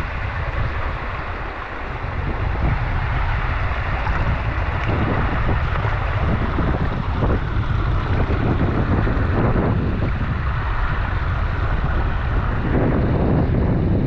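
Wind buffeting the microphone in an uneven low rumble, over a steady rush of moving creek water.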